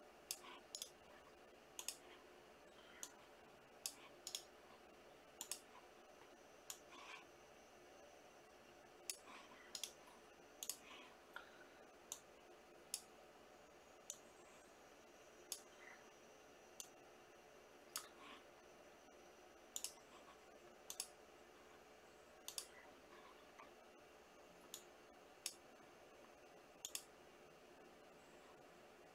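Sharp single clicks at uneven intervals, roughly one a second, over a faint steady hum.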